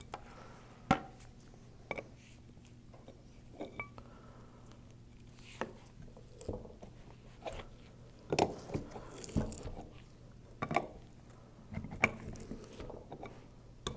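Wrenches clicking and knocking against the star nut of a Graco E-10 displacement pump as it is worked loose, in scattered sharp clicks that come in clusters about eight to ten seconds in and again around twelve seconds. A low steady hum runs underneath.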